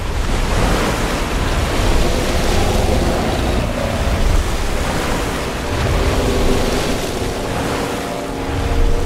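Heavy, sustained rush of churning, splashing lake water as a giant ape's hand plunges into it, with a deep rumble underneath.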